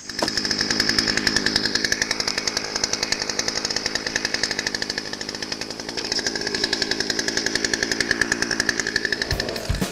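Two-stroke gas chainsaw, freshly repaired with new fuel lines, running steadily with a fast, even buzz. Drum music comes in near the end.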